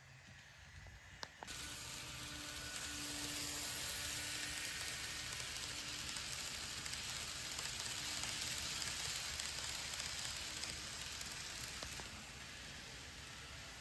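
Kato model Amtrak Superliner passenger cars rolling past close by on the track, a steady hissing rattle of wheels on rail. It starts suddenly about a second and a half in and drops away near the end as the last car passes.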